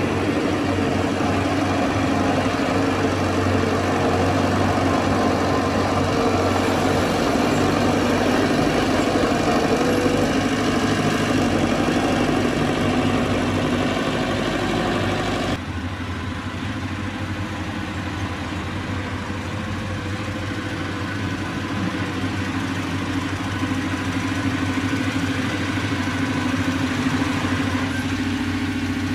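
Diesel engine of heavy earthmoving machinery running steadily. About halfway through, the sound drops suddenly to a quieter, lower-pitched run.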